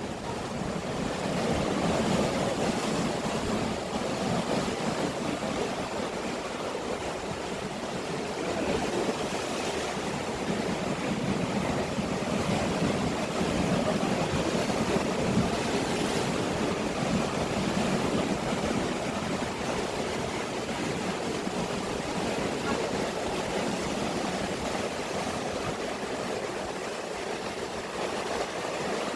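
Sea waves breaking against a rocky shore: a continuous wash of surf that swells and eases slowly.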